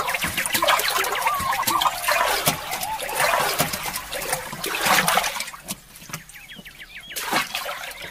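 Water splashing and trickling around a wooden canoe as it is paddled, busiest for the first five seconds or so and quieter after. Birds call over it, a few short whistles at the start and higher chirps later.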